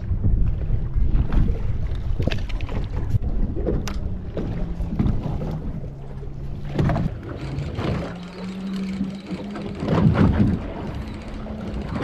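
Wind buffeting the microphone on a fishing boat at sea, heaviest in the first half, over a steady motor hum that steps up and down in pitch a few times. A few sharp knocks and rattles from gear on the deck.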